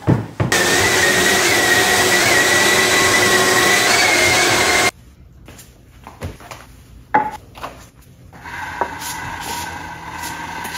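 A power tool running steadily with a high whine while cutting wood, for about four seconds, then cutting off abruptly. Quieter knocks and handling sounds follow, with a fainter steady hum near the end.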